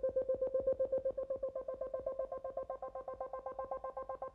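Fast, even hammer taps on the car's steel sill panel, about eight a second, each with a short metallic ring. The sill is held under tension by a dent-pulling bar while it is tapped.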